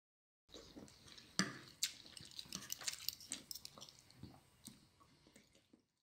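Quiet, irregular clicks and light scrapes of a metal spoon against a plate, with eating sounds, starting about half a second in; the sharpest click comes about a second and a half in.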